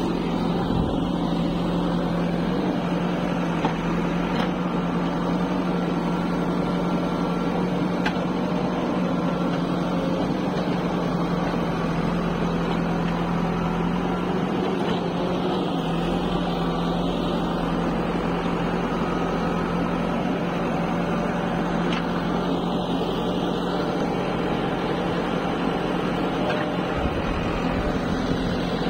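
JCB 3DX backhoe loader's diesel engine running at a steady pitch, heard close up.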